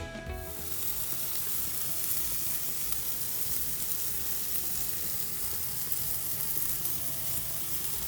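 Yogurt-marinated chicken sizzling steadily as it grills over high heat.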